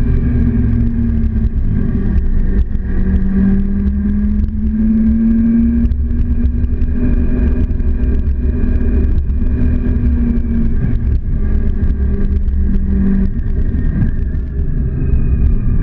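Motorcycle engine running at road speed, its humming note stepping between two steady pitches every few seconds as the throttle changes, over a constant low rumble.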